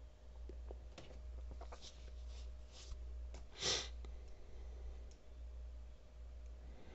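Faint computer mouse clicks over a steady low electrical hum, with a short breath from the narrator a little past halfway.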